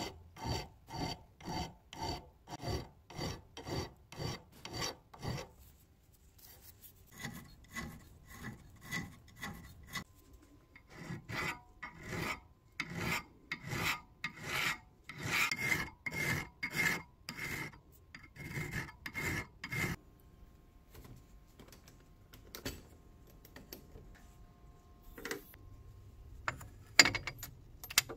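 Hand file rasping back and forth across the steel of an old adjustable wrench, about two strokes a second, with a short break about a quarter of the way through. The filing stops about two-thirds of the way in, followed by a few scattered light knocks and two sharper knocks near the end.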